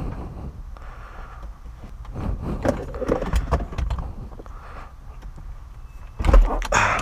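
Scattered metal clicks and knocks from a long socket wrench being heaved on the 21 mm steering wheel nut against the locked steering column, with a louder thump about six seconds in.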